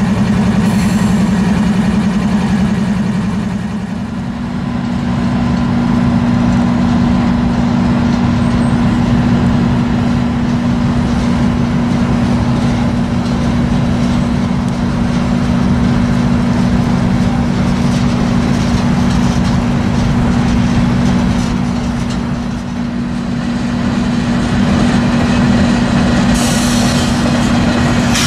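Norfolk Southern freight train passing close by. Its diesel locomotives hum steadily for the first few seconds, then the freight cars rumble and clatter over the rails. Near the end a hiss sets in as the mid-train ES44DC diesel helper comes up.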